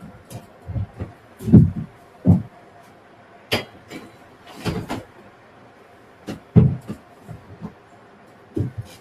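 Irregular knocks and dull thumps, with a few sharp clicks, as tools and pieces are handled and set down.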